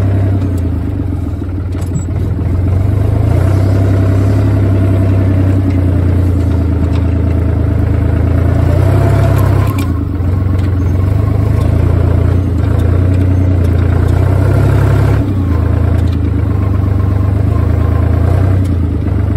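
Fiat 45-66 tractor's three-cylinder diesel engine running steadily under load, its pitch and level rising and dipping slightly a few times.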